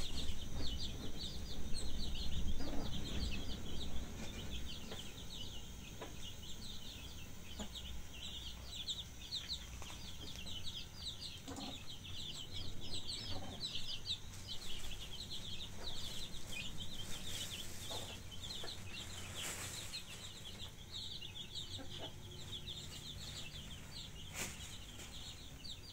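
Many birds chirping in a steady, high-pitched chatter of short calls, over a low rumble in the first few seconds and a few scattered knocks.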